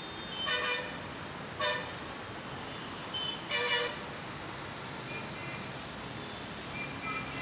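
Vehicle horns honking in city traffic: three short honks in the first four seconds, the last one the longest, over a steady hum of traffic.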